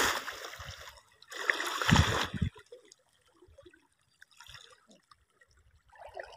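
Heavy splashing of a man thrashing through chest-deep river water, beating the surface to drive fish toward a net. There is one burst at the start and another about one and a half seconds in, then only faint trickling.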